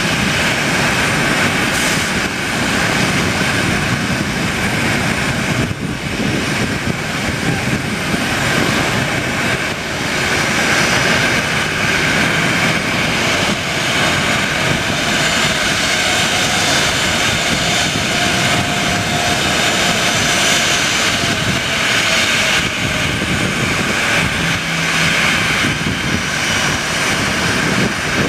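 Boeing 737 jet airliner taxiing toward the listener, its two jet engines running at low taxi power with a steady rush.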